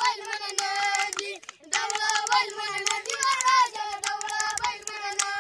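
A boy singing a tune over quick knocks of sticks beaten on a wooden log and a wooden box, children imitating a banjo band. The singing breaks off briefly about a second and a half in.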